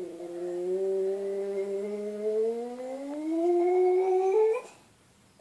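Small dog giving one long, drawn-out howl that slowly rises in pitch, breaking off near the end.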